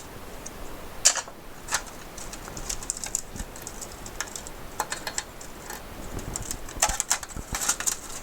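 Irregular small clicks and taps of hands working the circuit board and connectors loose from an Apple II floppy drive, with a handful of sharper clicks spread through.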